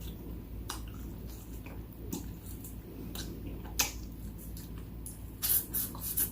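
Close-up eating sounds: biting and chewing corn kernels off the cob, a scatter of short wet clicks and crunches, busiest near the end.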